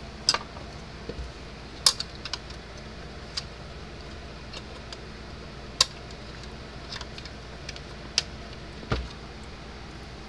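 Irregular light clicks and knocks of hands handling the plastic case and parts of an opened electric fence charger, over a steady low hum.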